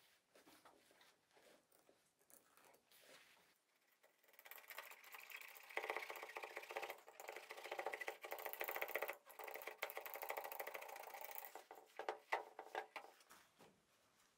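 A blade cutting circular holes through thick upholstery foam: a dense, rough cutting sound with a few short breaks, lasting about seven seconds, starting about four seconds in. Before it come faint light scratches, and near the end a few sharp ticks.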